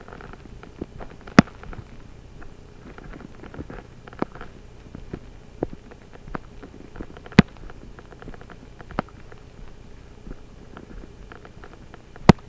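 Scattered small clicks and taps picked up close to a webcam microphone, three of them sharp and loud, spaced several seconds apart, over the microphone's faint low hum.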